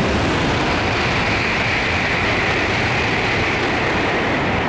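Steady Shinkansen train noise at a platform: a low hum under a rushing hiss that swells through the middle and eases near the end.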